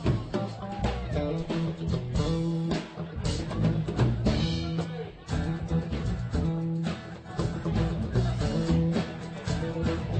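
Live band playing: electric guitar over a drum kit keeping a steady beat.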